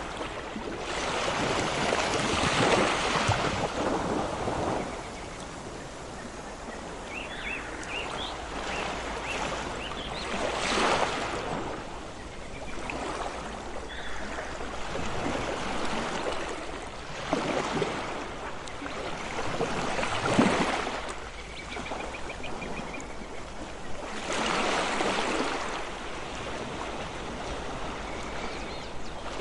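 Ocean waves breaking and washing ashore, the surf swelling and falling back every few seconds.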